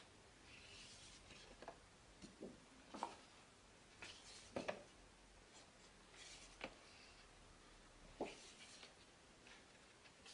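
Paper pages of a photobook being handled and turned by hand: faint paper rustles and a few soft sharp taps at irregular moments as the folded pages are opened out.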